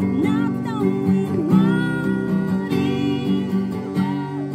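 A woman singing a song while strumming chords on a Yamaha acoustic guitar.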